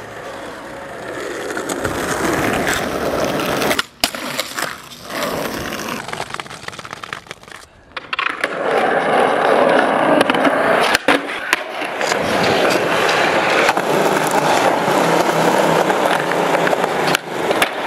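Skateboard wheels rolling steadily over smooth pavement, with a few sharp clacks of the board against the ground.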